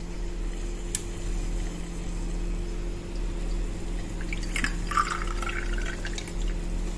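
Apple vinegar poured from a bottle into a small glass tea cup: a trickling pour from about four and a half seconds in to about six, its pitch rising as the glass fills.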